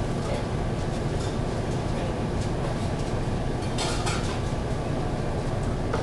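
Steady roar of restaurant kitchen machinery, fans and equipment running, with a brief light clatter of items being handled about four seconds in.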